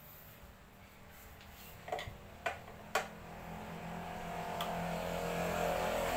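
Three sharp clicks about half a second apart, then a steady engine hum that grows louder toward the end.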